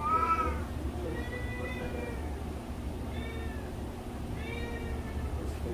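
Domestic cat meowing, about four separate drawn-out calls that each rise and then fall in pitch.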